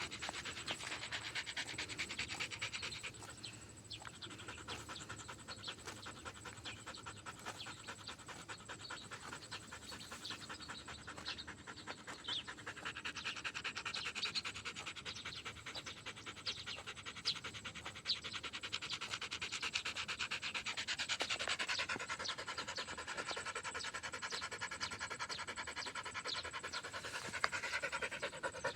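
A dog panting quickly and steadily, the heavy breathing of a tired dog.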